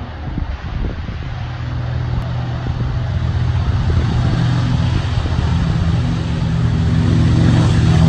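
B-25 Mitchell's twin 14-cylinder radial engines running at high power, growing steadily louder as the bomber comes down the runway toward the listener. Some wind noise on the microphone at the start.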